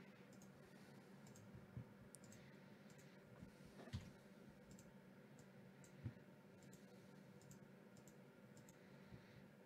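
Faint, scattered clicks of a computer mouse and keyboard over a low steady hum, with a couple of slightly louder knocks about four and six seconds in.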